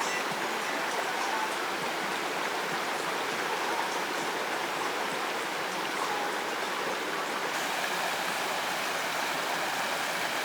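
Rushing water of a waterfall, a steady, even roar with no break.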